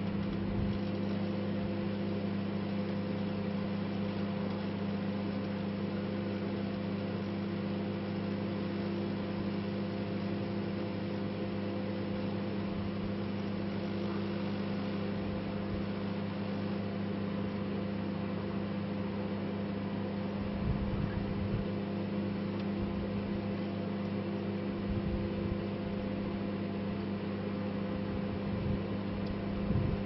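Microwave oven running with a steady electrical hum and drone, with a small umbrella inside. Two brief low bumps come about two-thirds of the way through and near the end.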